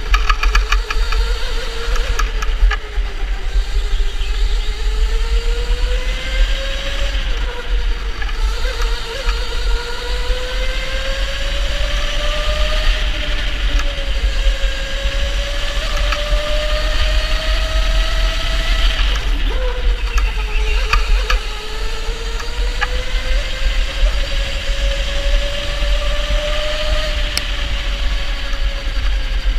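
Electric go-kart motor whining at racing speed, its pitch rising and falling again and again with the kart's speed, over a steady low rumble.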